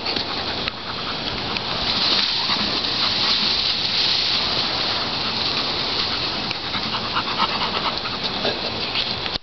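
Labrador retriever panting: a steady breathy hiss with small clicks.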